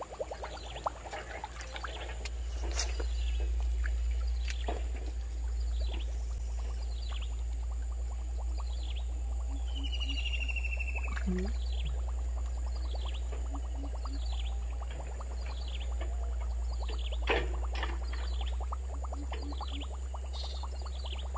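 Outdoor ambience: a steady low rumble under many short falling chirps from calling animals, one or two a second. A brief whine comes about halfway through.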